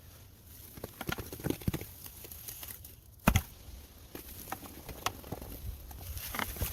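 Hand work on timber: scattered taps, knocks and scrapes, with one heavy thud a little over three seconds in.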